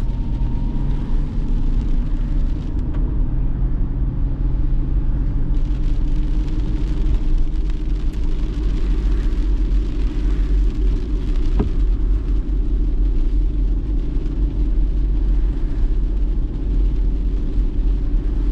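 Steady low rumble of a car driving on a rain-soaked road, heard from inside the cabin: engine and tyre noise with the hiss of tyres on wet tarmac. A single sharp click sounds past the middle.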